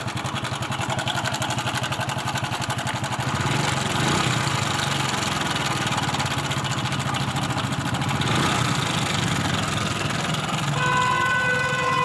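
Hero Passion Pro motorcycle's single-cylinder four-stroke engine idling with a fast, steady rattle, which the mechanic puts down to a loose timing chain. The engine gets a little louder about four seconds in. Near the end a steady pitched tone joins it.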